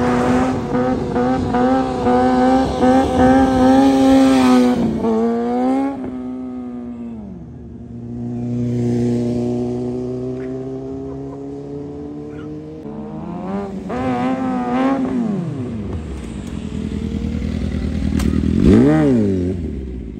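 Motorcycle engine running at high, steady revs, then dropping off about five seconds in. It is revved up and down again a few times near the end.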